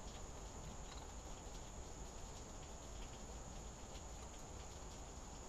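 Faint, scattered light clicks and taps of a block plane's metal parts being handled as the blade and lever cap are fitted during reassembly, over a steady high-pitched whine and low hum.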